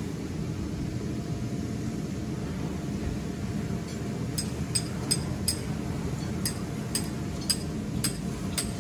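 Hammer striking a metal ground stake to anchor the inflatable: about nine sharp, ringing metallic clinks, roughly two a second, starting about four seconds in. Under them runs a steady low hum, typical of the electric blower that keeps the inflatable slide up.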